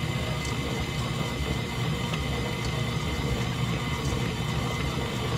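Electric stand mixer motor running at a steady hum while its flat beater turns through thick cookie dough with chips just added, with a few faint ticks.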